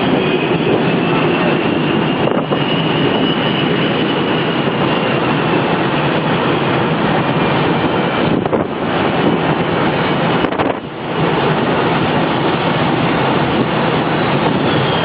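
Jet engines running with a steady roar and a high whine that drifts slowly in pitch. The roar briefly drops about two, eight and a half and eleven seconds in.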